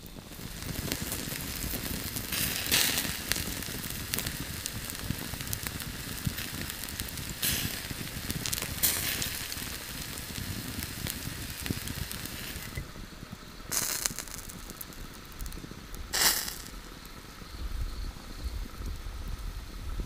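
Campfire crackling while a skewered mouse roasts over it, its fat sizzling. A few louder hissing pops stand out over the steady crackle.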